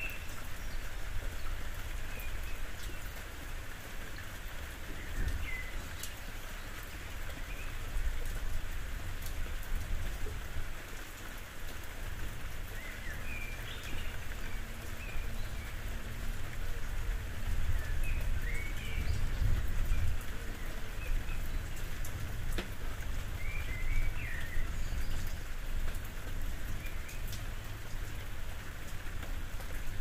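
Steady rain falling on a roof, with a low rumble underneath and scattered drops. Birds chirp briefly every few seconds through the rain.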